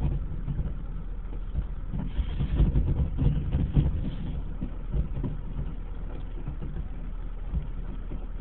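Distant fireworks going off as muffled thumps over a steady low rumble, the thumps clustered between about two and four seconds in.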